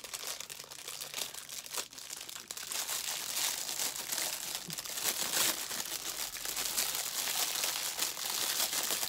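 Clear plastic gift bag being opened and handled: dense, continuous crinkling, busiest in the middle.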